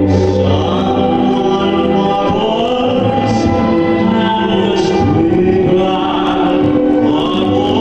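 A man singing in a tenor voice, with long held and gliding notes, over backing music with sustained chords.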